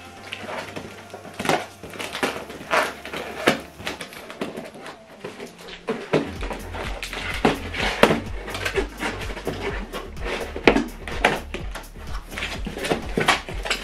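Cardboard soundbar carton being opened by hand: tape slit and flaps and packing pulled open, a run of short scrapes and rustles. Background music plays underneath, its bass louder from about six seconds in.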